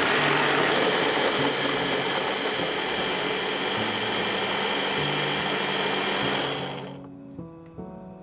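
Electric food chopper, its motor unit sitting on the bowl lid, running steadily as it blends strawberries into a pink purée: an even whirr with a high whine that stops about seven seconds in.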